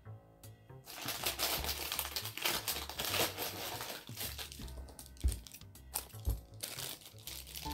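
Crinkling and rustling of blind box packaging being unwrapped by hand, over background music.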